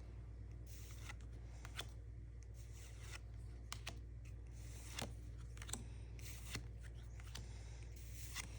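Faint rustling and soft clicks of Pokémon trading cards being handled and slid past one another as they are looked through one by one, over a steady low hum.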